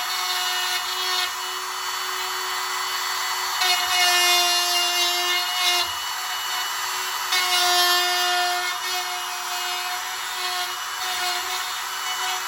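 Handheld router running at a steady high-pitched whine while cutting a hinge mortise into a wooden door. It gets louder twice, about four and about eight seconds in, as the bit bears into the wood.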